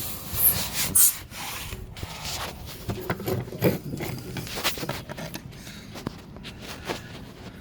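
Mast boot being worked out of the deck collar around the mast: irregular rubbing and scraping with scattered clicks, sharpest about half a second and one second in.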